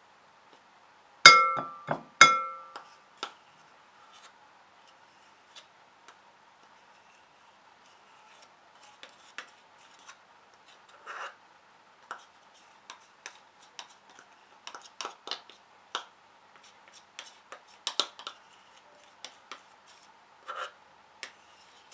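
Glass mixing bowl clinking and briefly ringing as a plastic measuring cup knocks against it, twice in quick succession about a second in. After that come many soft taps and light scrapes as flour is tipped and shaken from the cup into the bowl.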